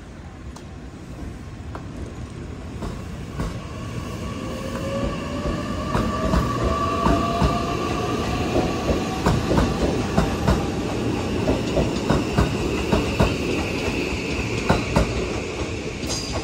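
JR West 227 series 1000 electric train pulling away past the platform: its traction motor whine rises steadily in pitch as it accelerates, with a rumble and repeated clacks of the wheels over the rail joints.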